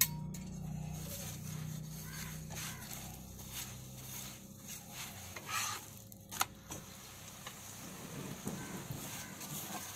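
Oil sizzling under a paratha on a hot iron tawa, with a steel spatula scraping and pressing the bread against the pan; a few sharper scrapes and taps stand out, one near the start and two about halfway through.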